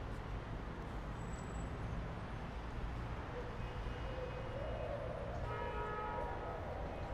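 Steady city traffic rumble. About three seconds in, a distant siren starts wailing slowly up and down, with a short steady tone joining it about two-thirds of the way through.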